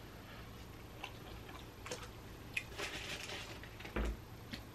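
Scattered light clicks and a short rustle of takeout food containers being handled on a counter, with a dull knock about four seconds in.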